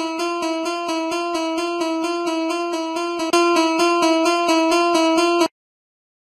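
Japanese level-crossing (fumikiri) warning alarm ringing: one steady bell tone repeated fast and evenly, about four to five strikes a second. It gets louder about three seconds in and cuts off suddenly near the end.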